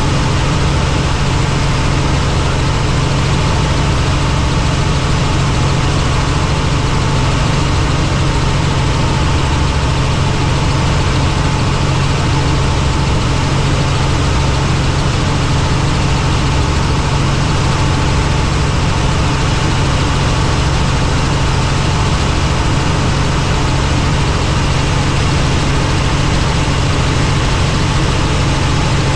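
Helicopter in flight: its engine and rotors make a loud, steady drone with a strong low hum that does not change.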